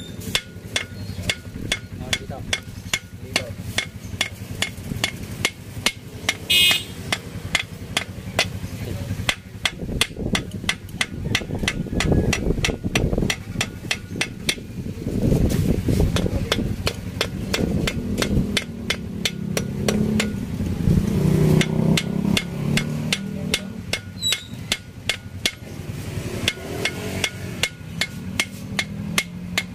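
Hammer tapping on the metal rim of a cylinder bore in an Isuzu 4BC2 engine block, short sharp metallic strikes at an even pace of about three a second.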